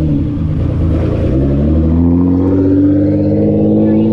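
A car engine running at low speed, its pitch dipping briefly and then rising slowly and steadily as the car pulls away.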